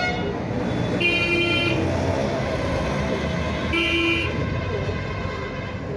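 Two short vehicle horn toots, the first about a second in and the second about four seconds in, over a steady rumble of traffic.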